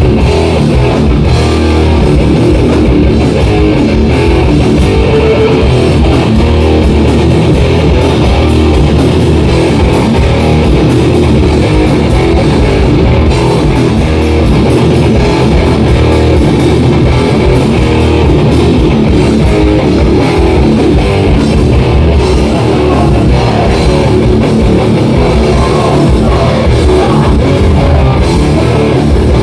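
Hardcore punk band playing live: loud electric guitars and a drum kit, with rapid, even cymbal strikes through the middle of the passage.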